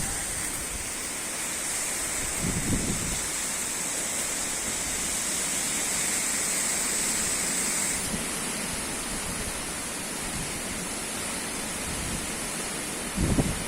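Strong wind blowing with a steady hiss, with low gusts buffeting the microphone about two and a half seconds in and again near the end.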